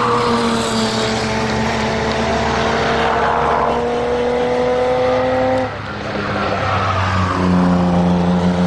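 London black cab's engine running under steady load, its note rising slowly; it breaks off sharply a little before six seconds in, and a steady engine note takes over.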